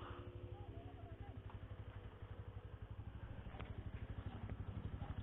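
Motorcycle engine idling, a steady low pulsing run.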